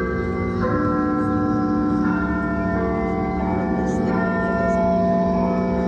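Clock-tower bell chimes in the manner of Big Ben, ringing a slow tune of one note about every two-thirds of a second, each note ringing on under the next. A steady low hum runs underneath.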